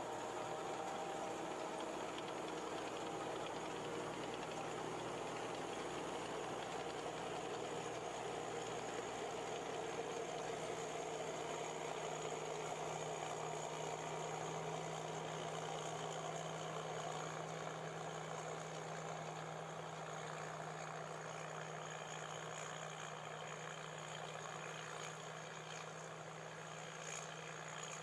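Tracked combine harvester's engine running steadily under load while it cuts and threshes grain, a continuous drone with a low hum that grows a little stronger midway and eases slightly near the end.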